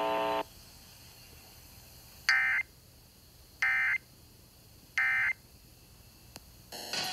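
Emergency Alert System end-of-message signal: three short, identical bursts of SAME digital data tones, evenly spaced about a second apart, marking the close of the flood warning broadcast. Before them, a steady buzzing tone cuts off about half a second in. Another short burst of sound comes just before the end.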